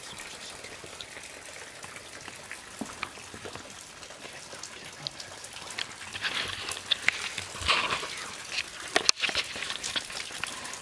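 Rain pattering, a steady hiss with many scattered drop ticks, growing louder and denser about halfway through.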